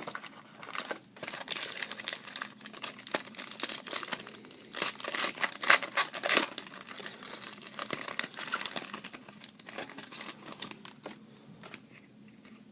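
A trading-card pack wrapper, a Panini Prestige football pack, being torn open and crinkled by hand, with the crackling of the wrapper coming in bursts and loudest about halfway through. The rustle then dies away as the cards come out.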